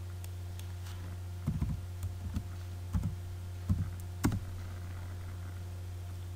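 Computer keyboard keystrokes in short irregular runs, with a few light clicks, over a steady low hum.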